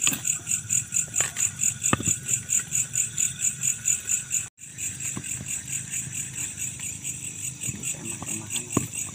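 Night insects, crickets by their sound, chirping in a steady high-pitched pulse of about five chirps a second, with a few light clicks. The sound drops out for a split second about halfway through.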